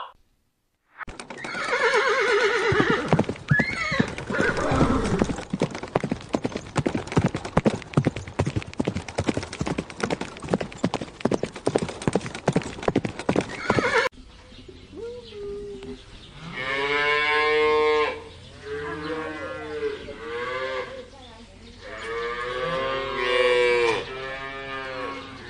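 A horse whinnies, and its hooves then clatter in a fast run for about twelve seconds. Cows then moo several times in long, drawn-out calls.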